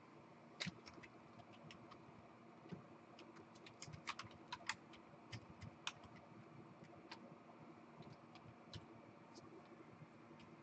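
Near silence with faint, scattered clicks of typing on a computer keyboard, coming thickest about four to five seconds in, over a faint steady hum.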